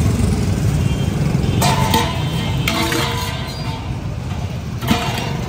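Steady low rumble of street traffic, with a few short clinks and knocks as chunks of ice are handled in a plastic bucket.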